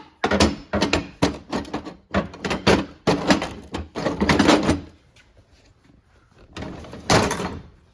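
Metal workbench drawers sliding and tools clattering inside them: a quick run of rattles and scrapes for about five seconds, then another sliding scrape near the end as a drawer is pulled open.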